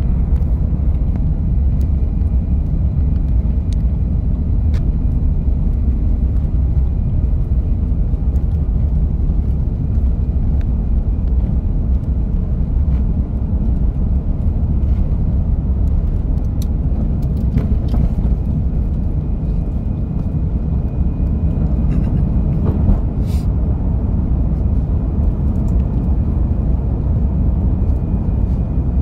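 Airbus A350-900 takeoff heard from a cabin seat over the wing: the Rolls-Royce Trent XWB engines at takeoff thrust together with the rumble of the runway roll, a loud steady low rumble as the airliner accelerates and lifts off in the second half. A few light cabin rattles are heard around the middle.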